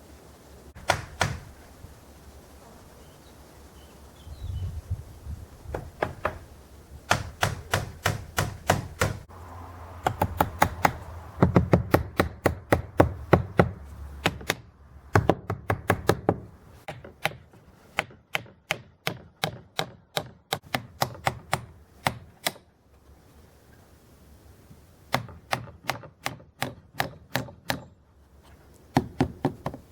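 Hammer blows on wood in quick runs of several strikes a second, with short pauses between the runs.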